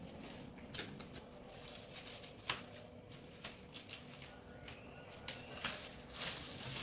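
Handling noises from a leather handbag: scattered light clicks of its metal hardware and short rustles of plastic wrap as its shoulder strap is pulled out.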